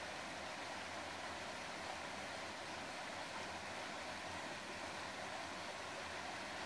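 Flowing water making a steady, even rushing.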